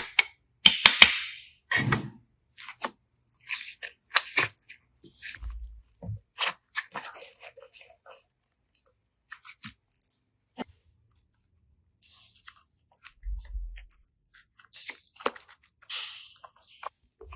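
Close-up handling noises: an irregular string of sharp clicks and short crinkly, crackling noises, with pauses between them, typical of slime, clay or plastic toys and packaging being worked by hand.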